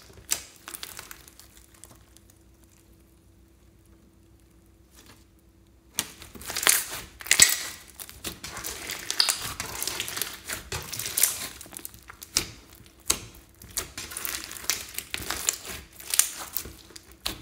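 Hands squishing and kneading sticky glitter slime packed with foam beads, giving a wet crackling and popping. It goes quiet for a few seconds, then becomes busy and continuous from about six seconds in.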